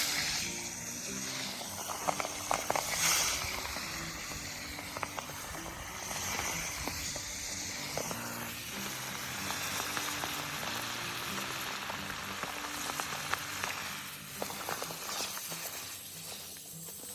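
Second batch of small river fish deep-frying in hot oil: a steady sizzle dotted with sharp crackles and pops.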